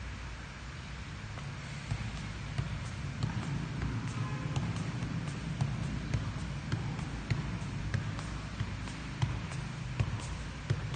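A football being juggled keepy-uppy style, with a steady run of soft kicks off the foot about two a second, starting about two seconds in.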